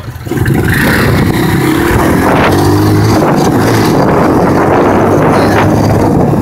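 ATV (four-wheeler) engine running under throttle while riding: it picks up about a third of a second in, then runs loud and steady.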